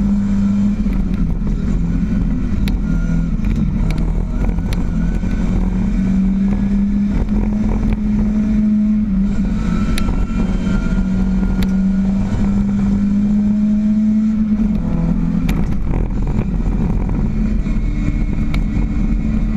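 Ford Escort RS 2000 race car engine heard from inside the cabin, running loud at high revs. Its pitch rises and falls in steps as the driver changes gear and lifts off. A few sharp clicks and rattles come through now and then.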